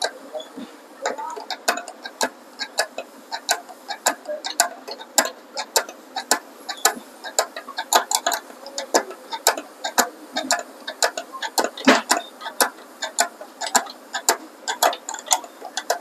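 Metal spanner clicking and clinking on nuts as bolts on a baler's sprocket and chain drive are tightened by hand: quick irregular clicks, two to four a second, with one louder clack about twelve seconds in.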